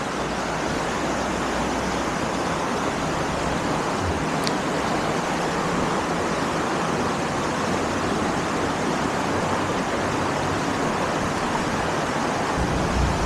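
Fast-flowing stream rapids rushing steadily.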